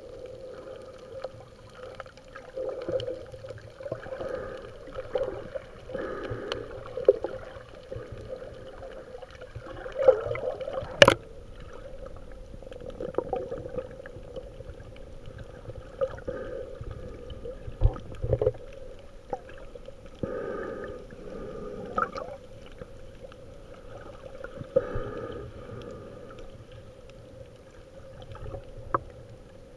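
Muffled underwater sound picked up by a camera held just below the surface: water swishing and gurgling in irregular swells, with a few sharp clicks, the loudest about a third of the way in.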